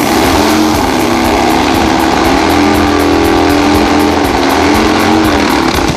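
Harley drag bike's V-twin engine revving hard and held at high revs during a burnout, its rear tyre spinning on the track. The engine note wavers a little in pitch over a loud, rough noise.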